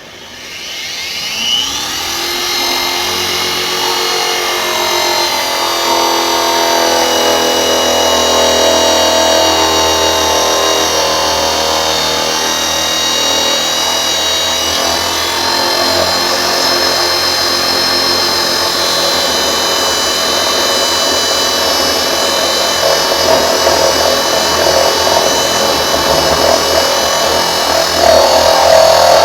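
Power drill running a hole saw through the side of a plastic food-grade drum: the motor spins up over the first couple of seconds, then holds a steady whine as the saw cuts, growing louder near the end.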